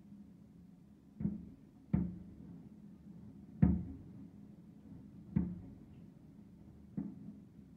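Five bangs from aerial firework shells bursting in the distance, each trailing off in a short echo; the loudest comes about three and a half seconds in.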